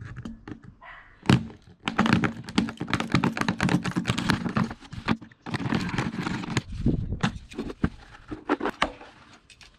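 Power drill cutting a hole through a plastic bucket: a run of rapid cracks and knocks as the bit chews through the plastic, over a steady motor hum, easing off near the end.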